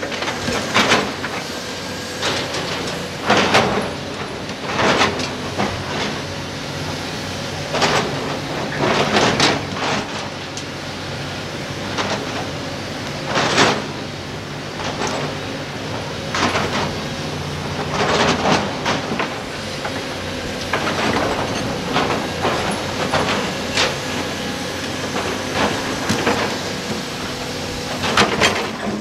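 CAT 320D hydraulic excavator's diesel engine running steadily under load while its steel bucket scrapes and knocks against large rocks, with repeated clattering thuds of stone, including boulders dropped into a steel dump-truck body.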